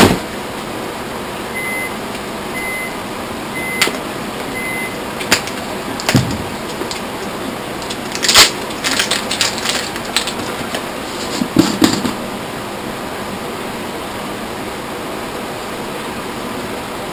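Clicks, knocks and rustles of a plastic supplement tub and other things being handled on a table, over a steady hiss; the loudest knock comes about eight seconds in, with clusters of clicks after it. Four faint short beeps about a second apart sound between about two and five seconds in.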